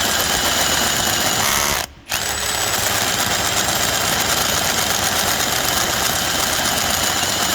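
Ryobi 18V One+ HP PBLDD01 brushless drill running under load, boring with a 13/16-inch bit at low speed, with a steady high whine. It stops for a moment about two seconds in, then starts again.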